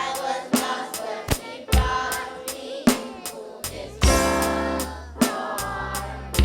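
Music with a full drum kit beat (snare, kick and hi-hat) and a sung melody, a bass line coming in about three and a half seconds in.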